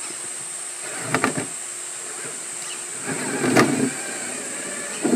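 Axial SCX6 1/6-scale RC rock crawler creeping over rocks, its electric motor and gears making a faint whine that rises and falls with the throttle. Tyres and chassis knock and clatter on the rock: a pair of knocks about a second in, a louder clatter with a sharp click around three and a half seconds in, and another knock at the very end.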